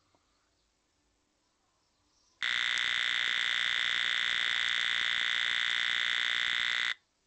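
Small speaker driven by a 555 timer alarm circuit sounding a steady high-pitched electronic tone. It starts suddenly about two seconds in and cuts off sharply after about four and a half seconds: the alarm set off when the circuit's light sensor detects strong light.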